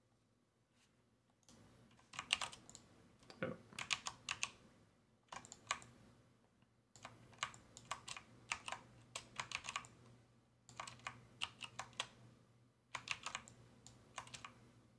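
Computer keyboard keys clicking in short runs of quick taps, with brief pauses between the runs.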